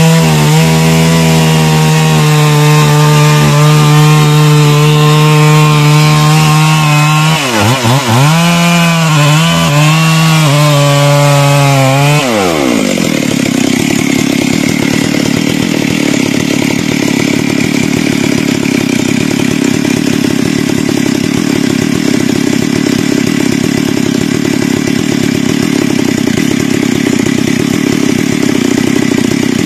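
Stihl MS 382 two-stroke chainsaw cutting into a teak trunk at high revs. About 7 s in, its pitch starts wavering and dipping as the chain bogs under load. Around 12 s the revs drop away, and the saw settles into a lower, rougher steady running.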